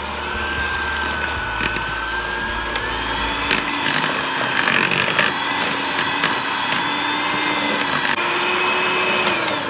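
Electric hand mixer running, its beaters working flour into cake batter in a bowl: a steady motor whine that rises in pitch partway through, with a few sharp clicks. It winds down near the end.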